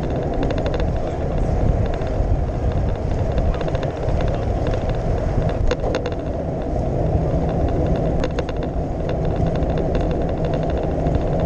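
Wind rumbling over the microphone of a handlebar-mounted camera on a moving bicycle, with clusters of quick light clicks and rattles near the start, around the middle and near the end.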